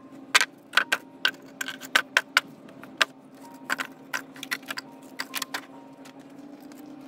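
Wooden boards and flat formwork panels knocking and clattering as they are picked up and dropped onto a pile, in quick irregular clacks. A steady low hum runs underneath.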